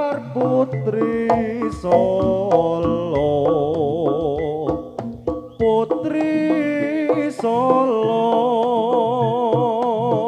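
Live jaranan gamelan music: a wavering melody with heavy vibrato over hand-drum strokes and sustained low gong tones. The melody breaks off briefly about a second in and again around the middle while the drum keeps going.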